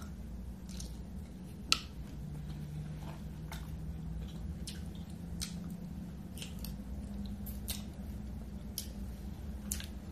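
Wet eating sounds of a mouthful of sauce-coated boiled shrimp: chewing, lip smacks and finger sucking, made up of scattered sharp clicks, with a louder click a little under two seconds in. A faint low steady hum sits underneath.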